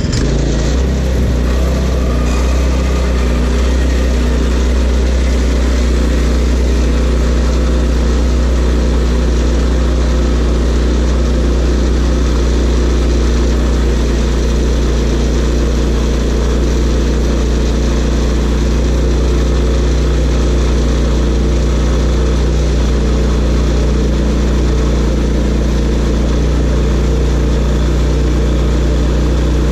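Portable sawmill's engine running steadily at a constant speed.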